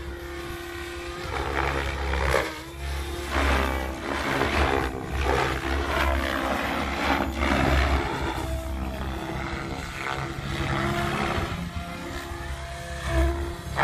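Electric 3D RC helicopter in aerobatic flight: its rotor blades whooshing in swelling surges every second or so as it flips and passes, over a steady motor whine.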